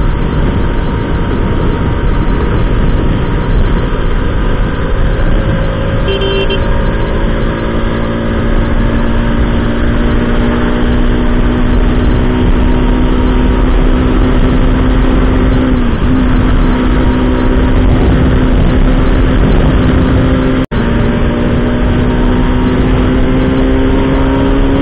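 Bajaj RS200's single-cylinder engine running at highway speed under heavy wind noise, its note climbing slowly as the bike gathers speed.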